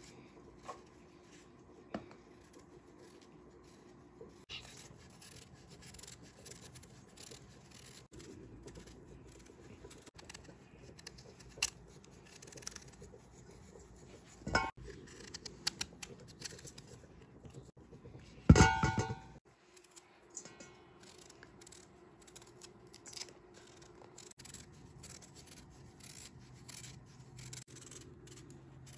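Kitchen knife peeling a raw turnip, the blade making repeated small scraping cuts through the skin as the peel comes away in long strips. About two-thirds of the way in, a loud clatter with a brief metallic ring.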